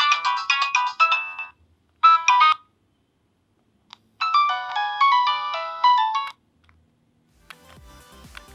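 Nokia 7650 stock ringtones and alert tones playing one after another: a quick melody of short notes ends about a second and a half in, a brief alert tone sounds at two seconds, and another melody runs from about four to six seconds. Faint background music with a low beat comes in near the end.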